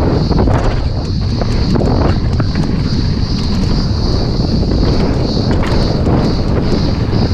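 Wind buffeting the action camera's microphone as a 2019 Specialized Stumpjumper alloy 29 mountain bike runs fast down a dirt trail, with the tyres rolling over loose dirt and stones and short clicks and rattles from the bike over the bumps.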